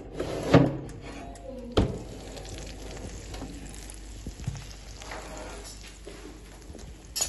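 A cast-iron pan being loaded into an oven, with a sharp knock about two seconds in, then a faint steady hiss.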